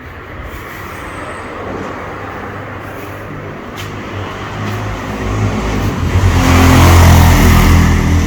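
A motor vehicle engine running, growing louder over the last few seconds.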